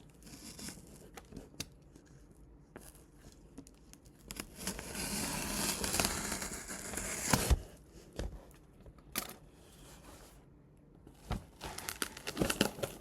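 Box cutter slitting the packing tape on a cardboard shipping box, with tape tearing and cardboard crinkling. The longest, loudest rasp comes about four to seven seconds in, followed by sharp clicks and knocks as the box is handled.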